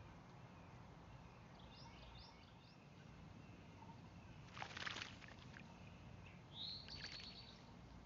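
An American robin splashing in a bird bath, with a short burst of splashing about halfway through and another near the end. A few faint bird chirps come about two seconds in, and a short high chirp comes near the end.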